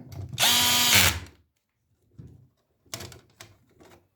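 Electric screwdriver set to its lowest torque setting, its motor running for about a second driving a screw into a plastic thread, then winding down; a few sharp clicks follow.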